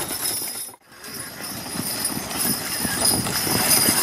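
Hooves of harnessed draft horses clip-clopping as a team pulls a carriage past, in a loose irregular beat of knocks. The sound cuts out for a moment just under a second in, then the hoofbeats resume.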